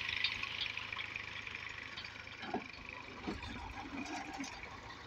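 Massey Ferguson tractor's diesel engine idling steadily, fairly faint and fading slightly, with a few faint short sounds about halfway through.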